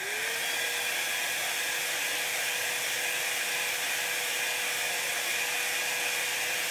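Small handheld craft heat tool switched on, its fan motor spinning up in the first half second to a steady whine over the hiss of blowing air. It is drying chalk paste on a stencil transfer.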